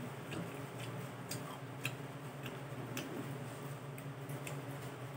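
Eating sounds: faint, irregularly spaced sharp clicks, about ten in all, as someone chews and picks food from the plate with her fingers, over a steady low hum.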